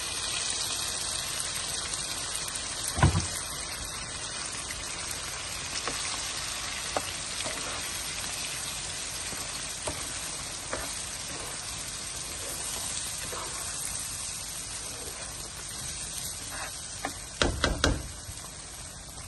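Marinated chicken sizzling in butter in a frying pan, a steady frying hiss while a tomato-onion paste is stirred in. A sharp knock about three seconds in and a quick cluster of knocks near the end, the spatula hitting the pan.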